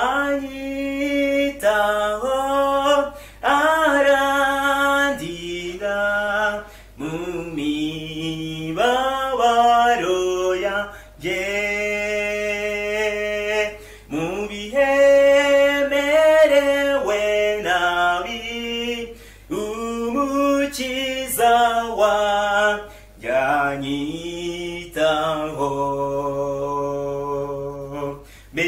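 A man singing a Kinyarwanda hymn solo and unaccompanied, in sung phrases of a few seconds with short breaths between them, through the refrain.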